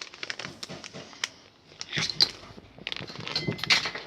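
Light clicks, taps and short rustles while more cornstarch is being added to a glue-and-paint slime mixture. The louder rustling comes about two seconds in and again near the end.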